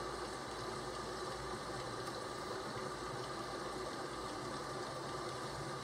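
Steady rain ambience: an even, unbroken hiss with a low rumble underneath.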